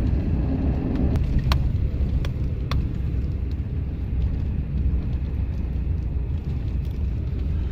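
A vehicle driving over a rutted, snowy dirt road, heard from inside the cab: a steady low rumble of engine and tyres, with a few sharp clicks between about one and a half and three seconds in.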